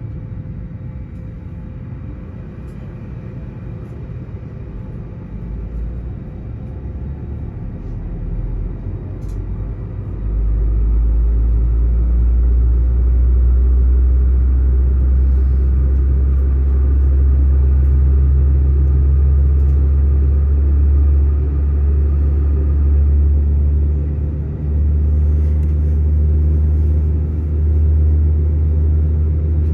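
Low, steady rumble of an Airbus A321neo heard inside the passenger cabin, slowly building, then jumping suddenly louder about ten seconds in and staying loud to the end, with a couple of brief dips.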